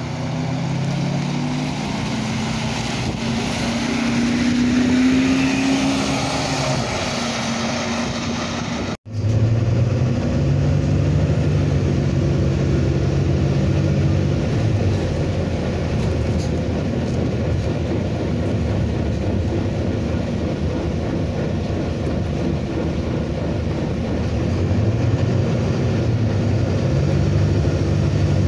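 Volvo B9TL double-decker bus's diesel engine. First it runs steadily as the bus stands at a stop. After a cut about nine seconds in, it is heard from inside the bus as it drives, its note rising and falling as it pulls and eases off.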